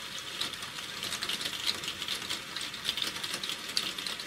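Rain dripping and pattering: dense, irregular ticking and crackling over a steady hiss.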